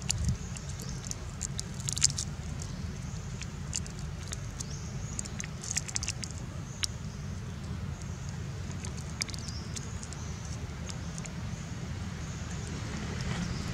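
Outdoor background noise: a steady low rumble with many small scattered clicks and crackles and a faint high hiss.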